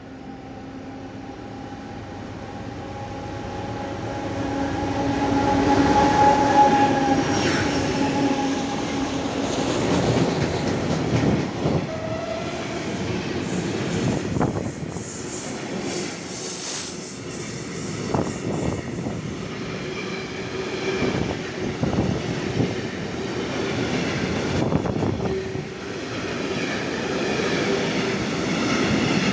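BR232 diesel locomotive sounding one long horn blast as it approaches, a few seconds in, then passing at the head of a train of tank wagons. The wagons roll by with a rhythmic clickety-clack of wheels over rail joints and a steady rumble.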